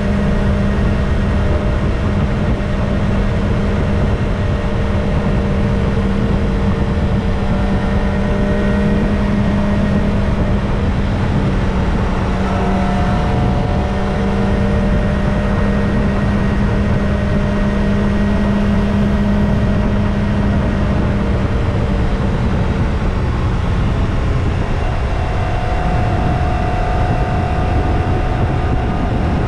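Kawasaki Ninja ZX-25R's 250 cc inline-four on its stock exhaust, running steadily under way, its engine note shifting a few times as the revs change, over a steady low rumble.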